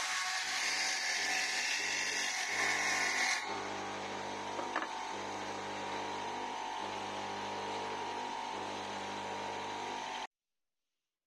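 Bench circular saw cutting into a wooden arrow nock blank held in a jig for about three and a half seconds, then the blade spinning freely with a steady hum once the cut is done. A single click a little later, and the sound cuts off suddenly near the end.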